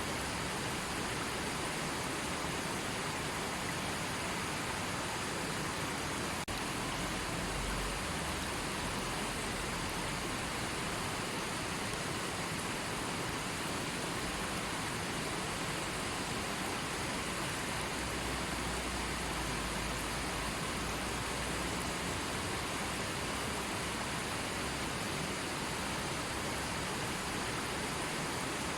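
River water flowing and rushing steadily, an even hiss with no rhythm, with brief low rumbles twice.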